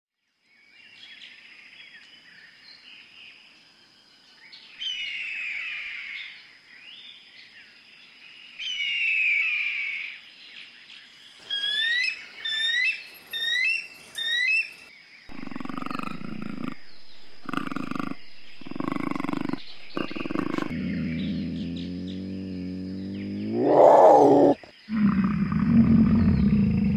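Birds calling faintly, then a rapid series of high, piping chirps typical of a bald eagle. Then a bison's deep grunts and bellows: several short calls, a long call that rises in pitch to a loud peak about 24 seconds in, and low grunting near the end.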